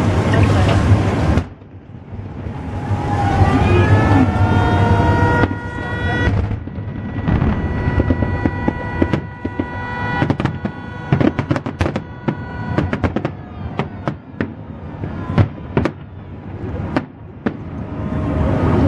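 Fireworks salute: many sharp bangs and crackles from about six seconds in, coming thick and irregular. A held high-pitched tone sounds over them from about six to thirteen seconds, and a loud rushing noise at the start cuts off suddenly about a second and a half in.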